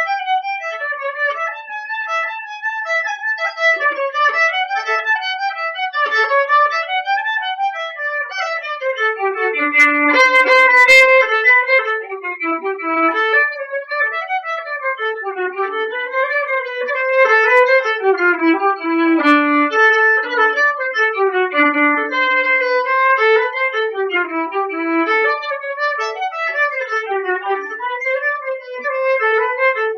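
Solo violin, bowed, playing a continuous running melody of quick notes with no accompaniment, loudest about a third of the way through.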